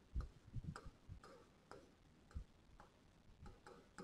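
Faint, irregular taps and clicks of a pen writing on an interactive whiteboard screen, a dozen or so light strokes with near silence between them.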